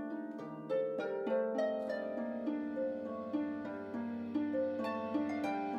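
Background music of plucked, harp-like notes in a gentle repeating pattern, with a low bass line coming in about a second and a half in.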